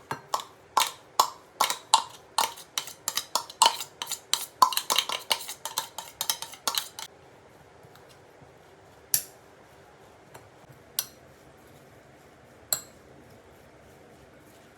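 Food chopper working a mixture of boiled chickpeas and soaked soya chunks in quick strokes, a fast run of sharp clicks about three a second for some seven seconds. Then three single clicks, spaced apart.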